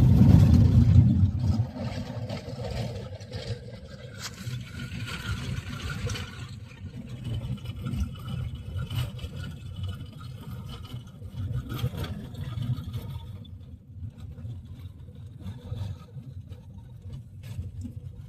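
A car driving, heard as a steady low engine and road rumble, loudest in the first second or so, with a few faint knocks.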